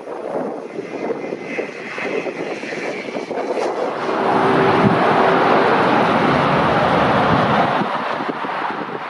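Single-engine light propeller aircraft flying low overhead, the engine and propeller growing louder about four seconds in as it passes close, then easing off slightly near the end.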